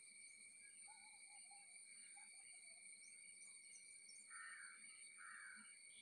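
Faint outdoor wildlife sound: a steady, high insect drone with scattered short bird chirps, and two louder, harsh bird calls about four and a half and five and a half seconds in.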